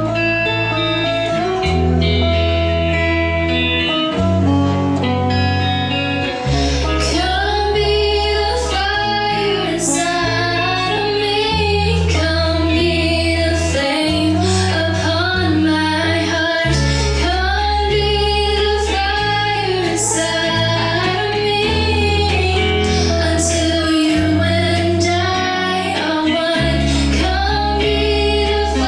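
A young woman singing lead into a microphone, accompanied live by electric bass and electric guitar through amplifiers. The bass holds long low notes that change every second or two, and the voice comes in about seven seconds in, with vibrato on held notes.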